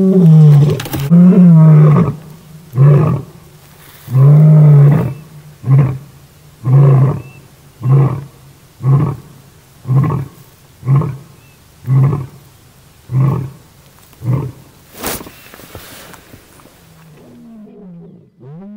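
Male lion roaring: a few long, deep roars followed by about ten shorter grunts, roughly one a second, that fade away.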